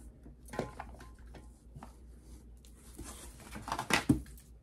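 Plastic bottles and containers knocking and clattering as they are lifted out of a cardboard box and set into a storage bin, with cardboard rustling. A cluster of louder knocks comes near the end.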